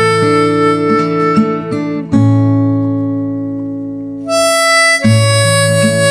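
Background music: harmonica melody over plucked acoustic guitar, with a long held chord that fades away about midway before the tune resumes.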